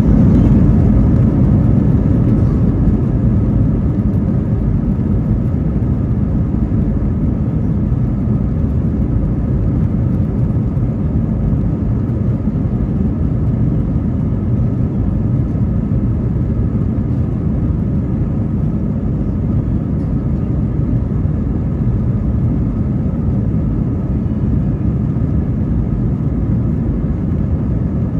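Steady cabin rumble of an Airbus A321-231, with its IAE V2500 jet engines running and the aircraft rolling along the runway, heard from a window seat over the wing. The sound is a deep, even roar, a little louder in the first few seconds.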